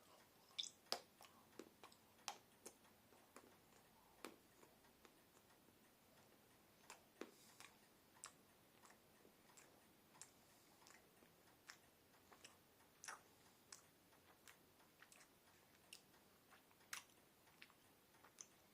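A person chewing a piece of Yorkie chocolate bar: faint, irregular soft mouth clicks and smacks, one or two a second, over near silence.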